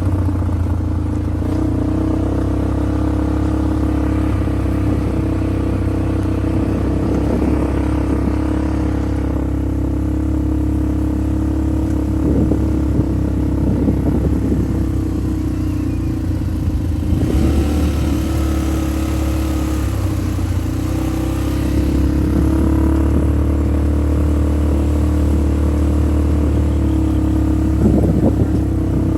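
Small off-road vehicle's engine running steadily during a ride, its pitch shifting a little now and then, with brief rattles and knocks at intervals.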